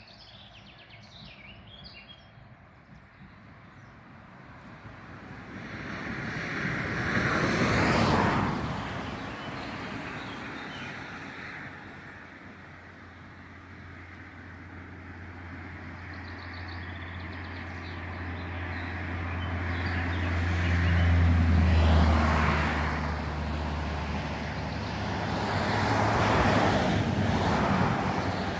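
Road vehicles passing by: three slow swells of tyre and engine noise that rise and fade, loudest about eight, twenty-two and twenty-seven seconds in, the middle one with a steady low engine hum. A few faint bird chirps near the start.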